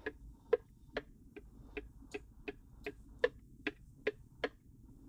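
A utensil knocking against a plastic mixing bowl as the egg and cream mixture is scraped out into the casserole pan: about a dozen sharp clicks at an even two or three a second, stopping just before the end.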